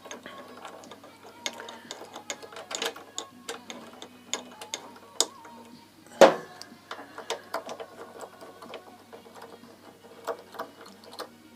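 Irregular metallic clicks and knocks of hand tools working on a motorcycle's front brake caliper as it is refitted, with one louder knock about six seconds in.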